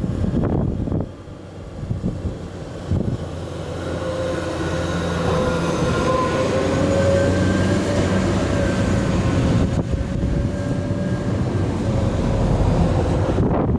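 Jet airliner engines running close by, with several whining tones over a steady rushing noise that grows louder from about four seconds in.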